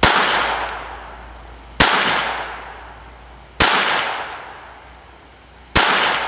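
Four gunshots from a small pocket handgun, fired at a slow, even pace about two seconds apart. Each sharp report trails off in a long echo.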